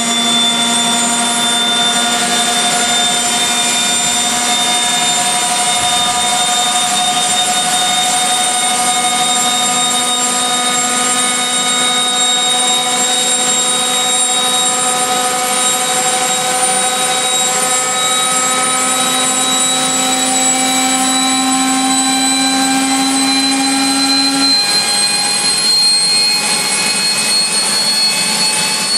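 AiResearch Garrett GTP70-9 turboshaft engine (a KC-135 auxiliary power unit) running, a loud turbine whine over a rushing noise, its pitch climbing slowly and steadily. A lower drone underneath steps up in pitch and then cuts off about three quarters of the way through.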